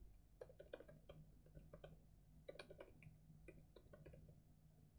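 Faint computer keyboard typing: soft, irregular key clicks, several a second, coming in short runs with brief pauses.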